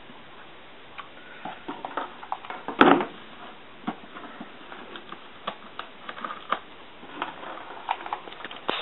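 Irregular small clicks, taps and scrapes of a corrugated plastic (Corex) boat hull being handled and pressed on a workbench, with a louder knock about three seconds in and another near the end.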